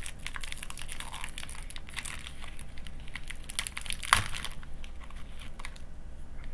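Cookie packet wrapper crinkling and crackling as it is torn open and a cookie is taken out, with one sharper crackle about four seconds in; the handling falls quieter for the last two seconds.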